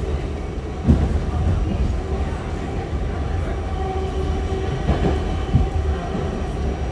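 R68 subway car running along the track, heard from on board: a steady low rumble with a few sharp knocks, one about a second in and two around five seconds in. A faint steady whine joins about four seconds in.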